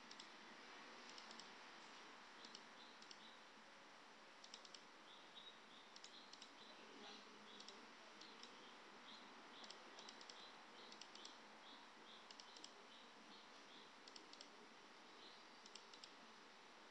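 Faint computer mouse clicks, many in quick pairs, over a low steady hiss.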